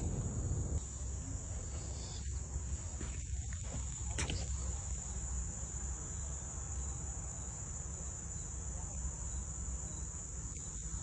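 Insects chirring as one continuous, steady high-pitched drone, over a low rumble.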